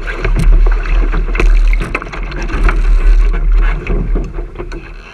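Wind buffeting an action camera's microphone on a sailing dinghy under way, with water splashing and slapping against the hull. It eases off near the end.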